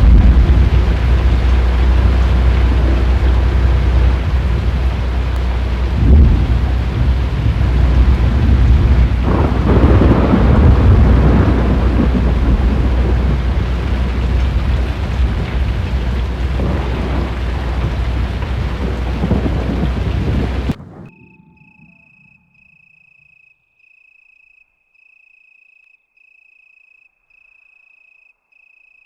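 Thunderstorm with heavy rain and a deep, loud rumble of thunder and wind, swelling louder about six and ten seconds in. About twenty seconds in it cuts off abruptly, leaving a faint high chirp repeating at an even pace.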